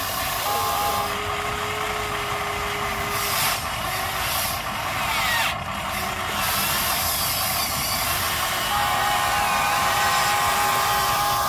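Electric motors of a Huina 580 RC excavator whining in stop-and-start runs as the boom and arm move, over a steady hiss.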